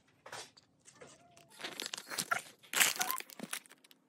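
Clear plastic bags of Lego pieces crinkling and being torn open, in irregular rustling bursts that grow denser and louder in the second half.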